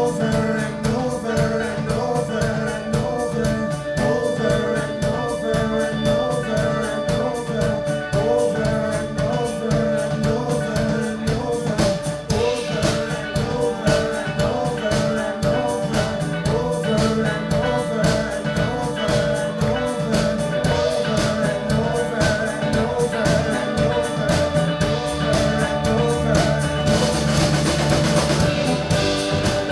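A band playing a song live, with a drum kit and singing. The cymbals get brighter near the end.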